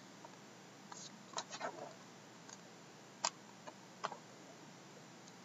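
A handful of light clicks and taps, with a brief crinkle, as two shrink-wrapped cardboard trading-card boxes are handled and turned over, over a faint steady hiss; the sharpest clicks come a little after three and four seconds in.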